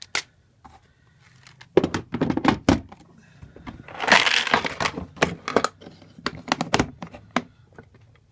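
Tools and small parts being handled and knocked about in a toolbox: a string of knocks and clicks, with a longer rustling scrape about four seconds in.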